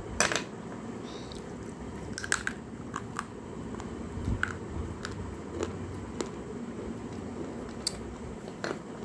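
Thin, soft Kolkata clay-pot pieces being bitten and chewed: a loud crisp crunch just after the start, then scattered sharp cracks with a low chewing grind in between.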